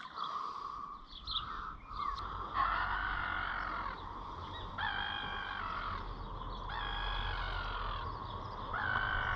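A bird calling, four long calls of even pitch about two seconds apart, the first coming about two and a half seconds in, over a low steady rumble.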